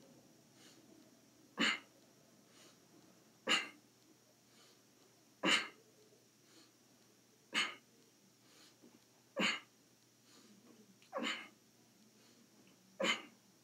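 A man's sharp, forceful exhalations, one with each sit-up, seven short huffs about two seconds apart in a steady rhythm.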